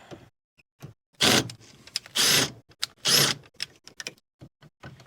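Powered screwdriver or drill/driver run in three short bursts about a second apart, clattering as it tries to back out a stubborn screw. The bit is slipping in a stripped screw head.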